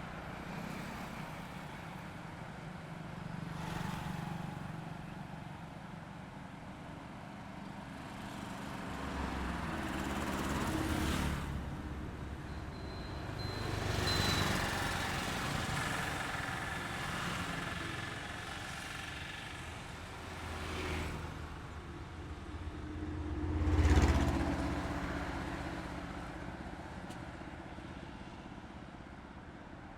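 Highway traffic: several vehicles approach and pass one after another, each swelling and fading, with the loudest pass-by about 24 seconds in. Traffic dies away toward the end.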